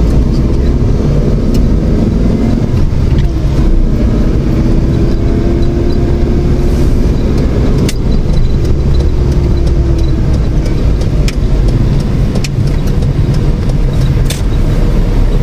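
Car driving, heard from inside the cabin: steady engine hum and tyre-and-road rumble, with a few light clicks.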